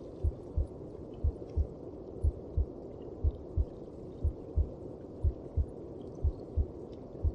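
A mother's heartbeat as heard inside the womb: a slow, even double thump about once a second, with a steady low whooshing underneath.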